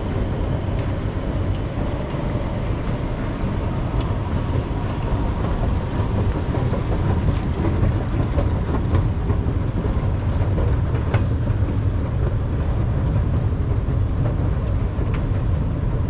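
Steady low rumble of an underground MRT station, with scattered light clicks.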